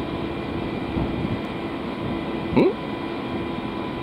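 A standing narrow-gauge electric train's onboard equipment humming steadily, with a constant tone running through it. About two and a half seconds in comes one brief, loud sound that sweeps up in pitch.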